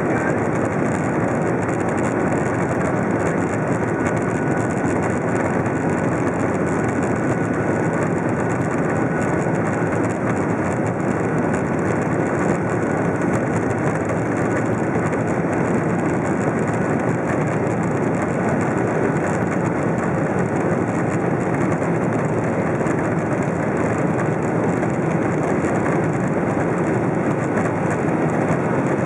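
Steady engine and airflow noise inside the cabin of a Boeing 737 moving along the ground, with the turbofans running evenly and a faint high whine.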